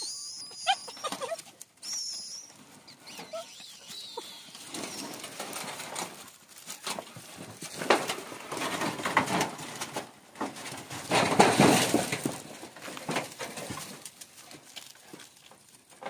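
Dogs scuffling and rustling through undergrowth while hunting rats, in irregular bursts that are loudest past the middle. A bird chirps a few times near the start.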